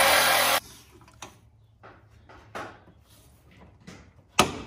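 A power cutting tool runs through a rusted, seized sway-bar end link and stops abruptly about half a second in. Scattered light metal knocks and clicks follow, with one sharp knock near the end.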